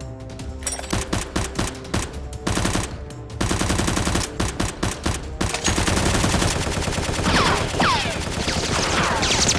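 Rapid bursts of automatic gunfire, thickening into continuous firing partway through, with several falling whistles near the end.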